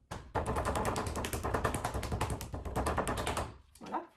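Fingertips drumming rapidly on a thick block of soft clay on a wooden board, a quick run of dull taps that stops shortly before the end. This is the clay being beaten out flat into a rough square before it is rolled into a slab.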